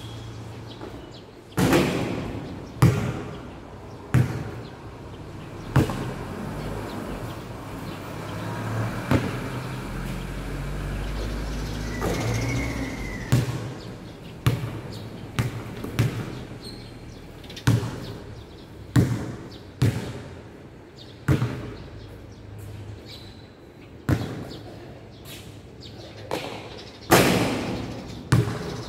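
Basketball bouncing on a hard court under a metal roof: single, sharp, echoing bounces at uneven intervals of about one to two seconds.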